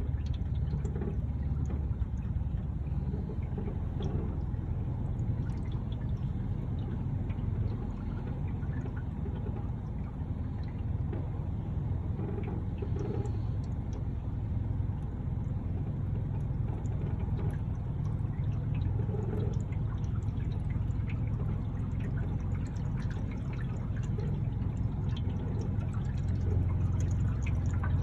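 Small boat under motor through floodwater: a steady motor hum under the wash of water rushing along the hull.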